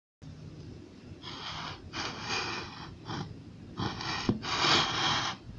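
Powdery frost ice in a glass bowl crunching and rustling in about five short bursts as it is handled, louder towards the end.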